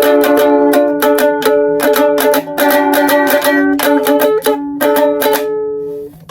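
Ukulele strummed quickly and repeatedly on a few chords by someone who can't really play it, stopping just before the end.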